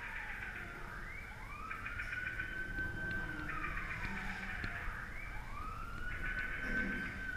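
Wailing siren sound effect, rising, holding and falling in slow sweeps about every three seconds.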